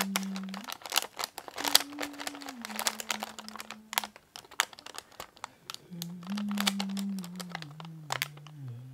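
Paper crinkling and crackling as fingers pick at a red paper seal on the white paper wrapping inside a galette tin, in quick sharp crackles that thin out toward the end. A low tone that steps in pitch sounds under it from about two seconds in and again from about six seconds in.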